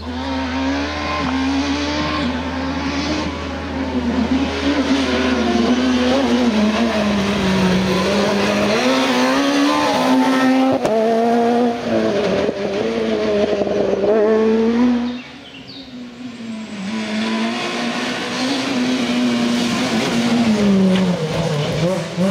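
Rally cars at full throttle on a tarmac stage. The engine note climbs and drops sharply through the gear changes as a car passes. About fifteen seconds in the sound falls away, then another run builds up loud again.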